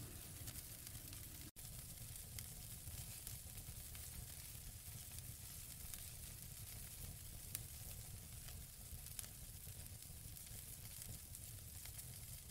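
Faint sizzling and crackling of the prop alien egg burning on a small barbecue grill: a steady hiss with a few sharp crackles and a low rumble underneath.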